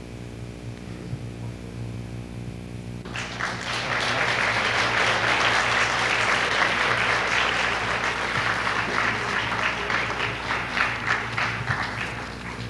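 Audience applauding: the clapping starts suddenly about three seconds in and dies away near the end, over a steady low hum.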